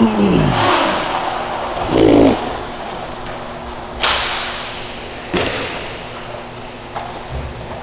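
Inline hockey play in a large, echoing rink: two sharp cracks of stick and puck against the boards about four and five seconds in, each with a reverberant tail, and fainter knocks near the end. A voice falls in pitch at the very start, and a brief louder noise comes about two seconds in.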